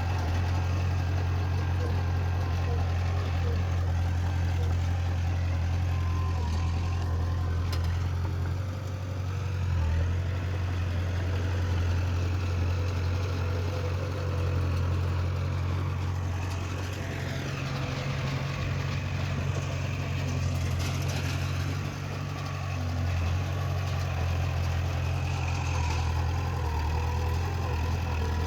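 Heavy earthmoving machinery's diesel engine running with a steady low hum. The engine note rises and falls a few times as it works.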